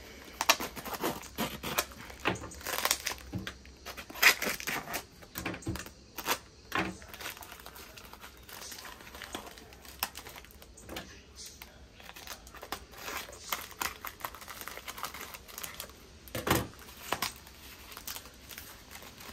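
Packing wrap crinkling and tearing as wrapped succulent plants are unwrapped by hand: dense, irregular crackling in the first half, quieter handling in the middle, and another loud rustle near the end.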